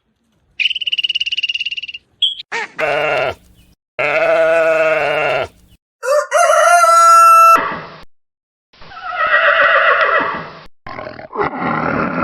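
A run of short, separate animal calls, one after another, each with its own pitch and shape: some high and thin, some lower and falling in pitch, from different farm animals.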